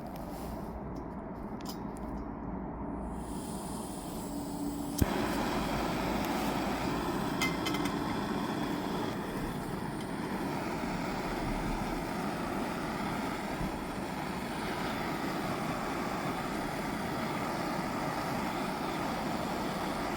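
Steady hiss of cooking on a gas camping stove under a Jetboil skillet. A sharp click comes about five seconds in, after which the hiss is louder and brighter.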